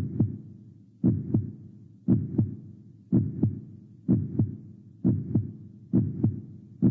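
Heartbeat: a steady double thump, lub-dub, repeating about once a second, about seven beats in all.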